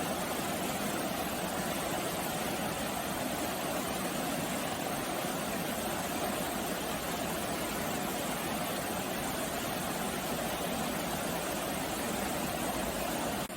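Steady rain: an even hiss with a low rumble beneath it, which drops off abruptly near the end.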